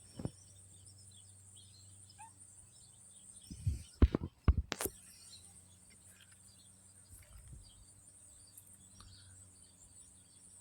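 Outdoor ambience of scattered faint bird chirps over a steady high insect hum. About four seconds in, a short cluster of loud knocks and bumps stands out as the loudest sound.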